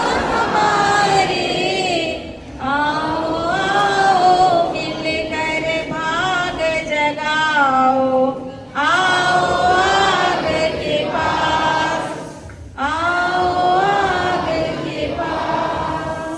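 A group of voices singing a song together, in long phrases broken by short pauses for breath.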